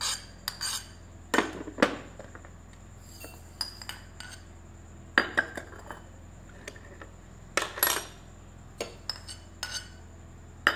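A metal spoon scraping and clinking against ceramic plates, with plates knocked and set down on a table, as dry spice seeds are tipped from one plate into another. The sounds come as scattered short clinks and scrapes, with a few louder clusters a few seconds apart.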